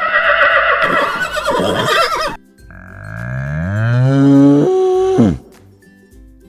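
A horse whinnying, cut off abruptly a little over two seconds in. Then a cow moos once: a long call that rises in pitch and then falls sharply at the end.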